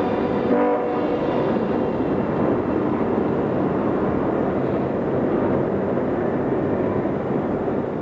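A train running, heard as a steady rumbling noise. A horn note sounds over it and stops about a second in.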